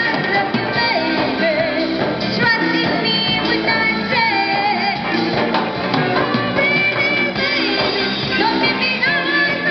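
A live street band playing a western pop song through amplifiers, with a woman singing the melody into a microphone over the band.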